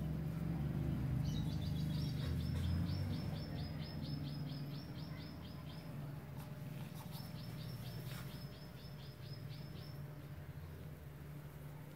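A small bird calling in two runs of rapid, evenly repeated high notes, each lasting a few seconds: the first starts about a second in, the second about seven seconds in. Beneath it is a low steady rumble, louder in the first few seconds.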